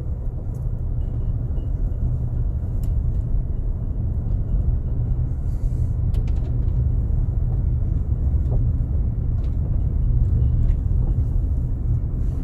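Steady low rumble of a car driving slowly on a gravel road, heard from inside the cabin, with a few sharp ticks scattered through it.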